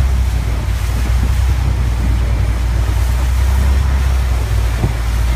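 Wooden canal boat's engine running steadily under way, with water washing along the hull and wind buffeting the microphone.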